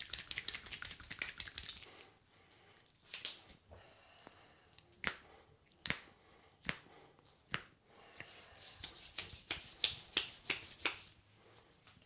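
Percussive massage strokes, hands smacking and tapping the bare arm and hand: a quick run of slaps, then single sharp strikes about a second apart, then another quick run near the end.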